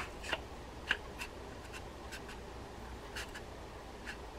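Shimano TLD 20 lever-drag reel being fitted back together by hand: scattered clicks and light rubbing as the side case and frame are twisted and the handle turned to seat the main gear. A sharp click comes at the start, then a few fainter ticks.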